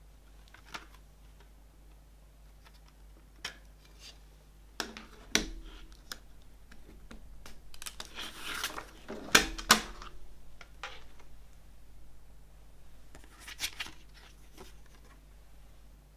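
Handling of CD packaging: scattered light clicks and taps, a longer rustling scrape about eight seconds in, then two sharp plastic-like clicks just after.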